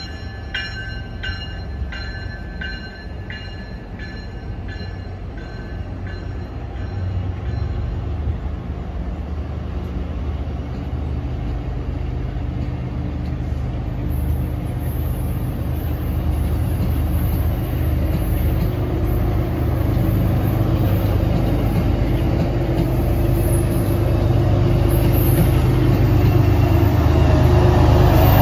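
An MBTA commuter train of double-decker coaches rolls past as it pulls out of the station, wheels running on the rails with a steady low rumble. A bell dinging about twice a second fades out in the first few seconds. The sound grows louder toward the end as the pushing diesel locomotive, an MPI HSP46, draws near.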